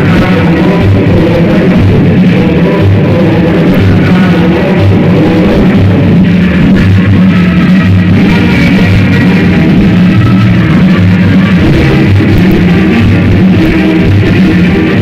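Loud music with a steady, pulsing bass beat, played through a sonidero's sound system.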